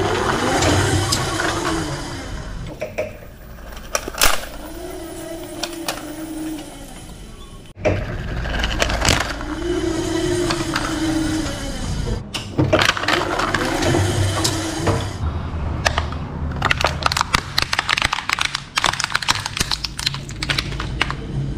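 A forklift running with a low rumble and a whine that rises and falls, while a plastic toy Jeep cracks and crunches under its tyre. There is a sharp crack about four seconds in, and a dense run of snapping and crackling plastic in the last several seconds.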